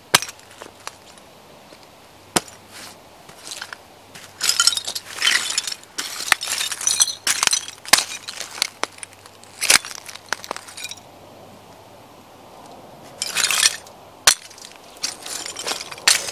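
Timberland work boots stomping and grinding on broken china plate shards and charred debris: crunching and clinking in bursts, with sharp single cracks, and a short lull near the end.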